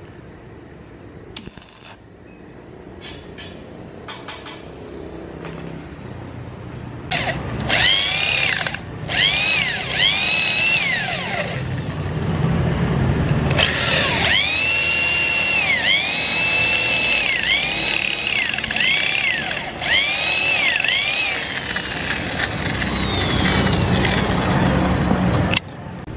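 Handheld electric power tool motor running in repeated short spurts, the whine climbing and then falling in pitch each time, with longer steady runs in the middle stretch. It stops suddenly near the end.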